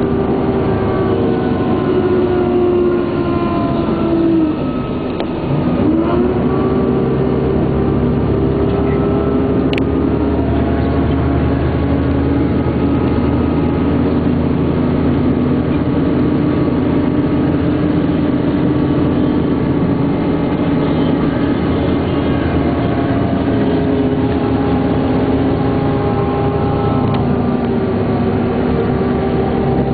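Scania K420 coach engine running steadily. About four to five seconds in, the revs drop and then pick back up, as in a gear change.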